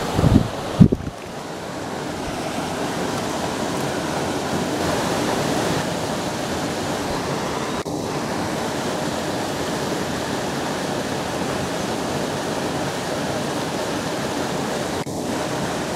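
Steady rush of water pouring through a spillway, an even noise throughout. A couple of low bumps sound in the first second.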